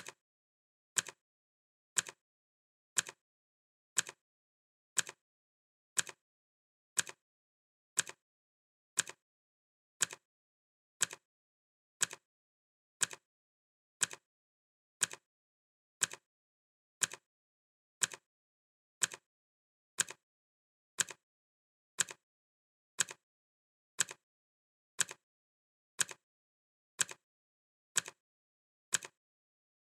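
Clock ticking sound effect: one sharp tick every second, each followed by a fainter second click.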